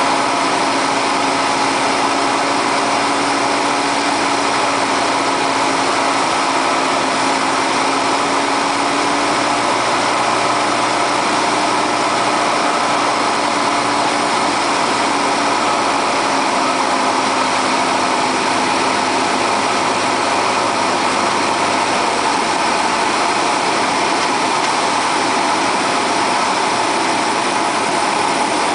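Single-engine light aircraft's piston engine and propeller droning steadily, heard inside the cockpit during the approach to landing. The drone's pitch shifts slightly about halfway through.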